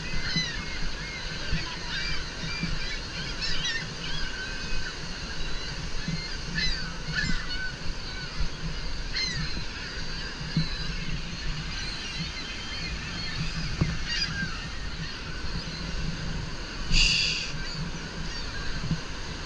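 Gulls calling over and over, short sharp cries scattered through the whole stretch, with one louder rasp near the end. Underneath runs a steady low roar of rushing river water.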